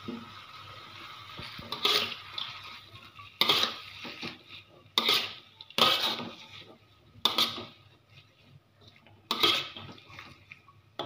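Stainless steel ladle-spatula scraping and scooping against a wok as shredded cabbage is stir-fried, six sharp metal-on-metal strokes one every second or two.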